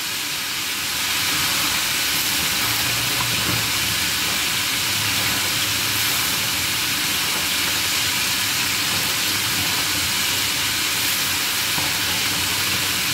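Sliced squash and vegetable strips frying in a pan, a steady sizzle.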